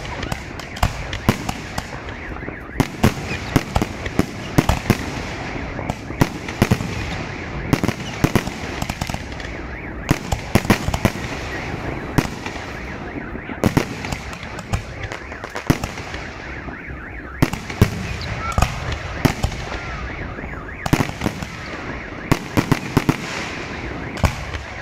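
Fireworks display: a rapid, irregular string of bangs from bursting shells, coming in clusters, over a steady crackling haze.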